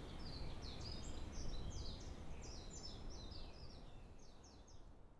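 Outdoor forest ambience: a bird singing a quick run of short, high, downward-slurred chirps over a steady low rumble, all fading out near the end.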